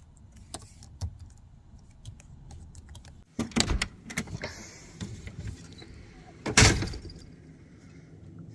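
An RV's screen door being handled and opened: sparse clicks at first, then a burst of rattling about three and a half seconds in and a loud thump about two-thirds of the way through.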